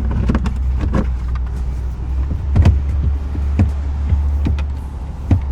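Scattered clicks and knocks of a door lock actuator and latch parts being handled and fitted inside an open car door, over a steady low hum.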